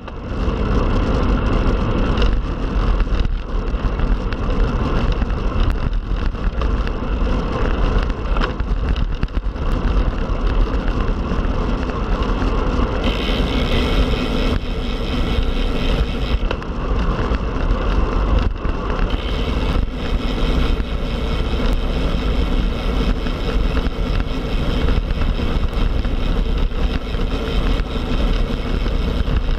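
Wind rushing over the microphone and tyre noise from a road bike ridden at speed: a loud, steady rush with a deep rumble. A brighter hiss joins about halfway through, drops out briefly, then comes back.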